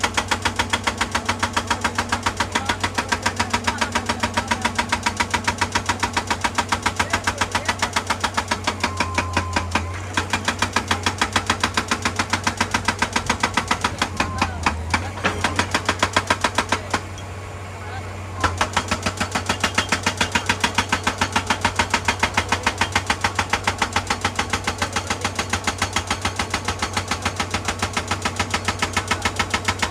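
Excavator-mounted hydraulic rock breaker hammering rock in a rapid, steady run of blows over the excavator's engine hum, stopping briefly a little past halfway and then resuming.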